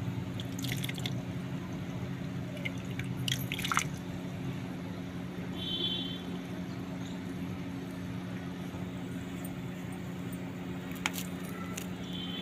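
A finger pressing and squishing soaked lumps of multani mitti (Fuller's earth clay) in a shallow bowl of water, with a few sharp wet crackles and clicks, loudest about three to four seconds in. A steady low hum runs underneath.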